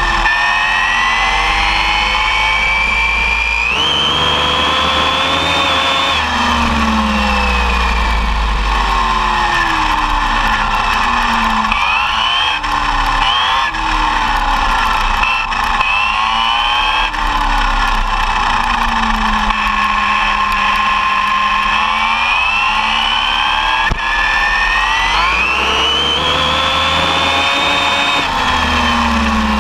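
ARRMA Typhon 6S brushless electric motor whining under throttle, its pitch climbing as the buggy speeds up and sinking as it backs off, over and over, with a steep rise about four seconds in and again near the end. Under the whine there is a steady rush of wind and road noise at the onboard camera.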